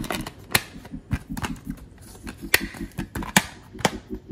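Blu-ray disc cases and box-set packaging being handled: a run of sharp plastic clicks and snaps with rustling and sliding between them, the loudest clicks past halfway.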